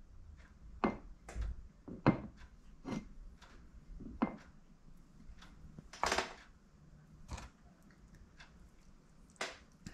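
Scattered light clicks and taps of small engine parts and tools being handled on a workbench while greased O-rings are pressed into the cylinder head's grooves, with a brief rustle about six seconds in.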